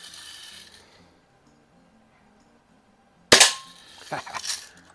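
Umarex Marlin lever-action BB gun fired once about three seconds in: a single sharp crack with a brief ring. It is followed by a few quieter clicks as the lever is worked.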